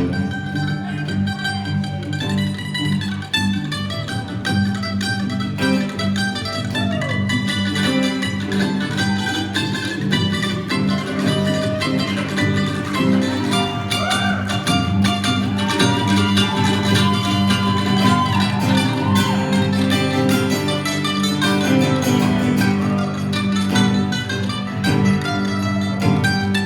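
Band playing an instrumental break of a rock-soul song: a guitar plays lead lines with bent notes over steady bass and drums.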